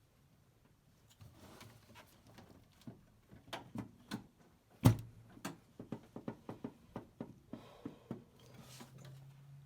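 Irregular light clicks, taps and scrapes of hand tools being handled and worked on engine parts, with one sharp metallic knock about five seconds in.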